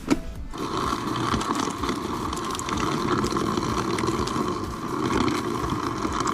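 Samsung Family Hub refrigerator's door ice dispenser running on crushed-ice mode, a steady mechanical whir with scattered clicks and rattles of ice. It starts about half a second in and cuts off suddenly near the end.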